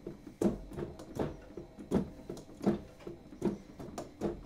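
Mechanical key noise of an M-Audio Hammer 88 Pro's hammer-action keybed, with no instrument sound, as keys are played hard: a thud about every three-quarters of a second as the keys bottom out, with lighter clicks between as the hammer mechanism falls back.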